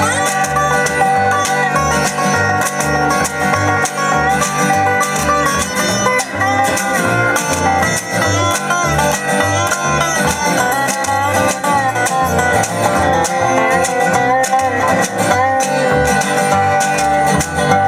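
Instrumental break of a country-tinged rock song: guitars and other plucked strings play over a pulsing bass line, with no singing.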